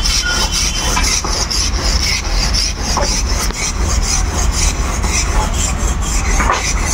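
Hand saw cutting a wooden plank in quick repeated strokes, over a steady low rumble.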